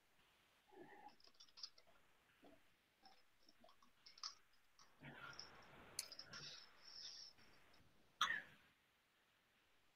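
Near silence with scattered faint clicks and small handling noises close to the microphone; the loudest is a sharp click about eight seconds in.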